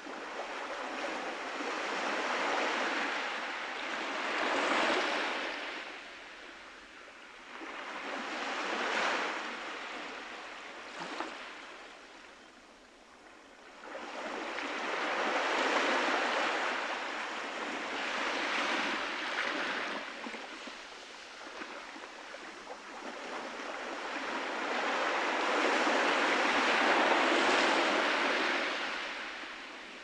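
Small waves breaking gently and washing up a sandy beach, the surf swelling and falling away in slow surges several seconds apart, the longest near the end.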